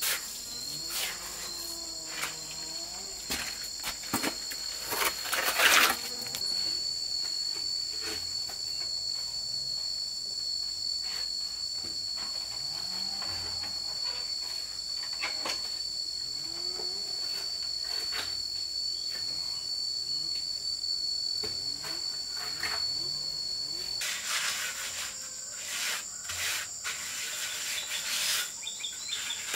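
Insects shrilling in a steady high tone, with intermittent scrapes of a steel trowel spreading cement mortar on a brick wall. About 24 seconds in the insect tone stops and the trowel scraping becomes denser.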